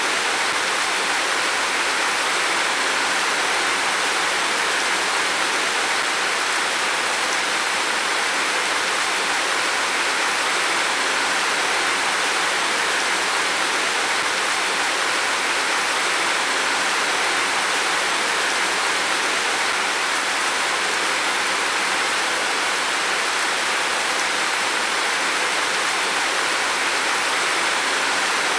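Heavy rain falling steadily on a roof, a dense, even hiss of countless drops with no distinct separate hits.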